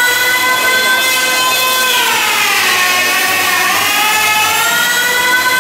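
A power tool's motor running with a steady whine. About two seconds in its pitch sags slowly, then climbs back up near the end.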